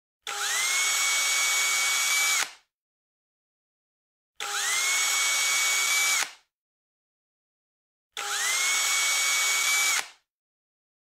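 Cordless drill with a countersink bit, run three times for about two seconds each to countersink holes in a white plastic cutting board held in a vise. Each run opens with a quickly rising whine that then holds at a steady pitch.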